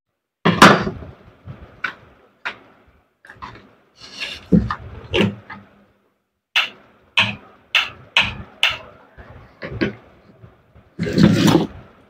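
Irregular clicks, knocks and clatter of angle grinder parts and tools being handled on a workbench, with a loud knock about half a second in and a longer clatter near the end.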